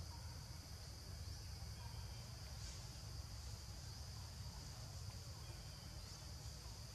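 Steady, high-pitched drone of forest insects, with a steady low rumble underneath and a few faint short chirps.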